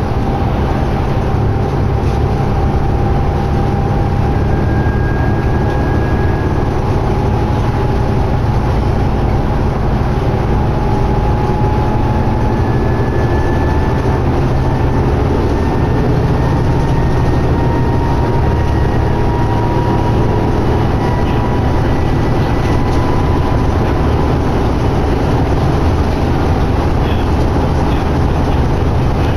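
Inside a New Flyer D60LFR articulated diesel bus cruising at highway speed: steady engine drone and road noise, with a faint whine that slowly rises in pitch.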